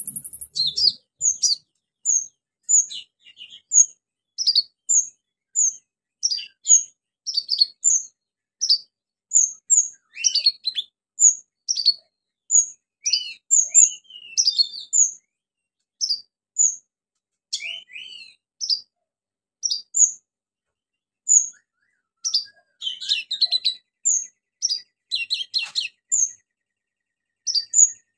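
Male sunbird (kolibri ninja, 'konin') singing vigorously: a steady run of short, high, sharp notes about once a second, mixed with quick twittering phrases that are full of mimicked songs of other birds.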